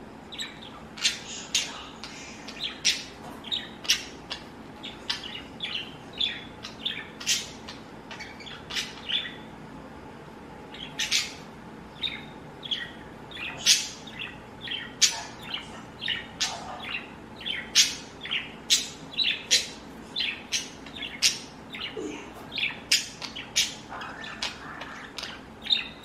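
Pet budgerigars chirping: a long run of short, sharp calls, several a second, with a brief pause about ten seconds in.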